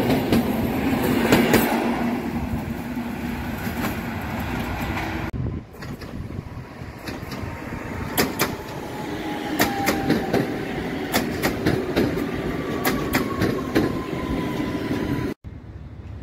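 Electric multiple-unit passenger trains running past on the line: a steady rumble of wheels on rail with sharp clicks over the rail joints and a faint, slowly falling electric whine. The sound cuts off abruptly twice where one train's clip gives way to the next.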